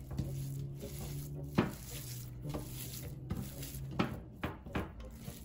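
Bare hands kneading and squishing raw ground beef in a glass baking dish, with a few sharp taps as fingers knock the glass, over a steady low hum.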